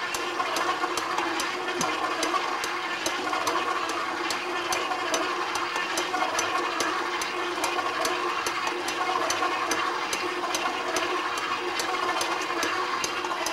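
KitchenAid commercial 8-quart stand mixer switched on at low speed, its motor humming steadily as the dough hook kneads sourdough bread dough. A regular tick repeats about three times a second over the hum.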